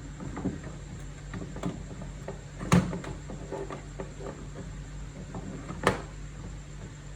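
A series of light clicks and knocks, with two sharper, louder knocks about three and six seconds in, over a steady low hum.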